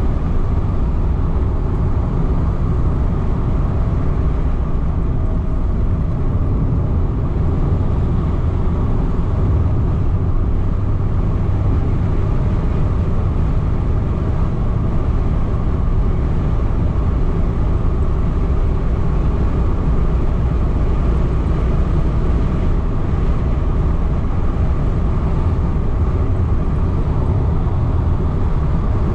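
Car driving at a steady speed, heard from inside the cabin: an even, unchanging rumble of engine and tyres on the road.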